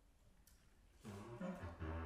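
Bass clarinet coming in about a second in after a quiet pause, playing a phrase of low, separate notes.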